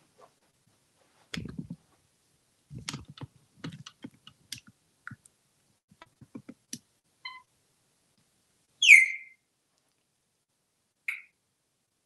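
Scattered clicks and taps, some with low thuds, through the first half. Then an African grey parrot gives one loud falling whistle about nine seconds in and a short high chirp near the end.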